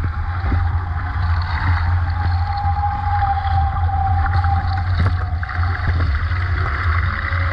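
Nacra 17 catamaran sailing: water rushing past the hulls over a steady low rumble, with a faint whistling tone that fades out a little past halfway and a couple of brief knocks near the end.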